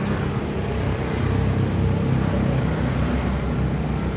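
A vehicle engine running with a low, uneven rumble.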